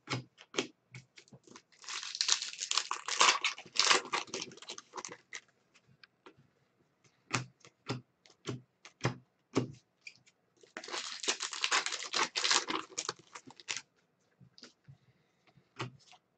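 Trading cards being flipped through by hand one at a time: a string of short sharp card clicks and snaps, with two longer stretches of denser rustling and sliding, about two seconds in and again about eleven seconds in.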